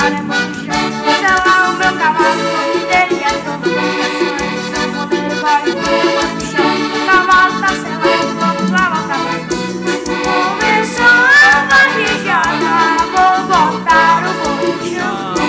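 Two accordions playing a lively instrumental tune together, a melody line over a rhythmic bass accompaniment.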